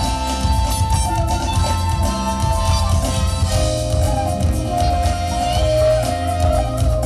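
A live jazz band playing, with trumpet and trombone over keyboards, electric bass and drums. Held melody notes sit above a steady, loud bass and drum groove.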